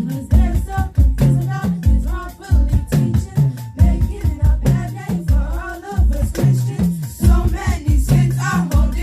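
Hip-hop music with a heavy bass and kick-drum beat and a vocal line over it.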